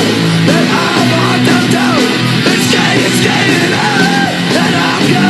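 Heavy rock music with distorted guitar and a loud, yelled vocal line.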